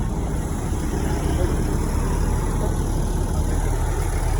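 Bus diesel engine idling with a steady low rumble.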